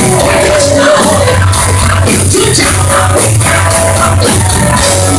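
Hard rock band playing loudly live, with a singer holding a wavering note near the start over the full band.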